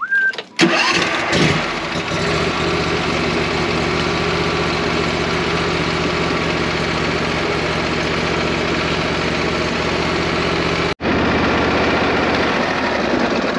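An engine starts about half a second in and then runs steadily at idle. Its deepest notes drop away near the end.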